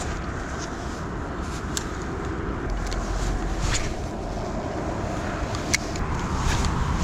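Steady low rumbling noise with a few short sharp clicks.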